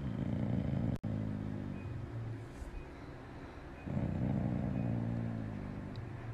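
Dog groaning: two long, low, drawn-out groans, the second starting about four seconds in.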